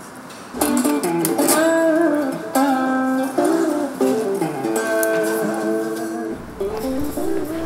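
Music led by guitar, starting about half a second in, with held melodic notes over chords.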